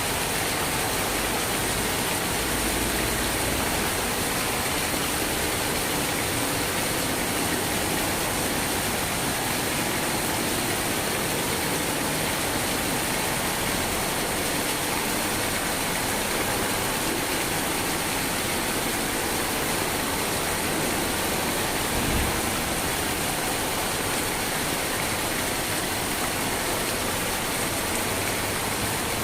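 Steady, even rain falling, with one brief low thump about three-quarters of the way through.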